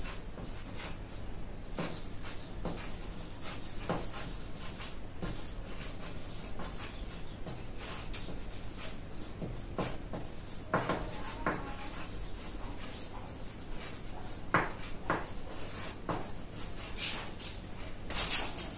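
Chalk writing on a chalkboard: a string of short, irregular scratching strokes as words are written, with a few louder strokes and taps later on.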